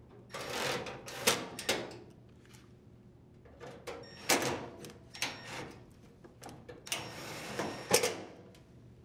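Milwaukee cordless drill driver running in three short bursts, driving screws into a dryer's sheet-steel front panel, with sharp clicks in each burst.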